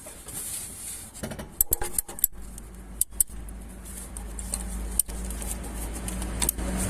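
Metal tools and bolts clinking and clicking against metal parts in a car's engine bay, as an alternator's mounting bolts are fitted and tightened. There are scattered sharp clicks, most of them bunched between about one and two and a half seconds in and around three seconds.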